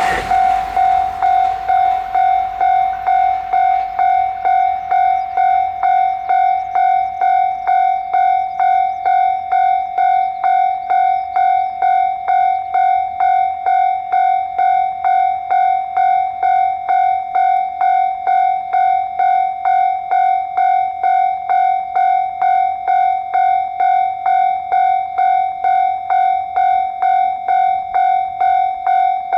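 Japanese railway level crossing warning bell ringing steadily, an even ding-ding at about two strikes a second, signalling that the crossing is closed for a train.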